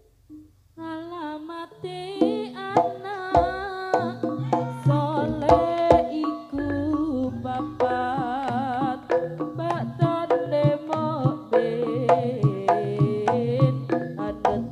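Live Javanese jaranan music through a PA: hand drums and percussion striking in a busy rhythm under a high, wavering melody line, starting up about a second in after a brief lull.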